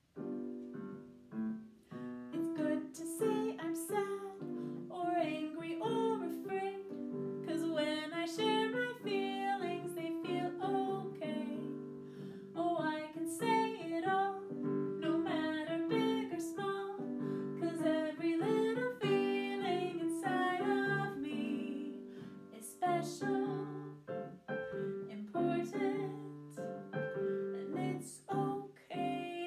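A woman singing a children's song to her own keyboard accompaniment, the keyboard playing steady chords under her voice.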